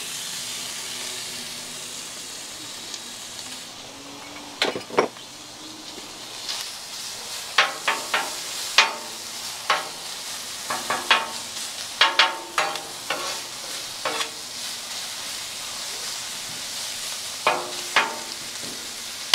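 Chopped bacon sizzling on a hot steel Blackstone flat-top griddle. A metal spatula scrapes and taps on the griddle as it spreads the bacon out, in clusters of sharp strikes starting about four seconds in.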